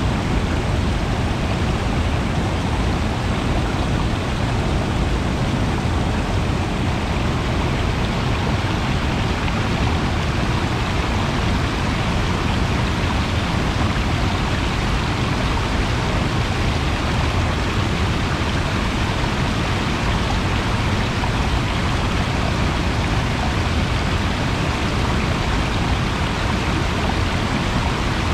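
Steady rushing of flowing water, a stream or small cascade, running on evenly without a break.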